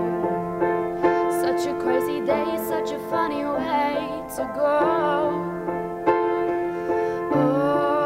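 Acoustic piano playing held chords, with a woman's singing voice wavering over it from about halfway through.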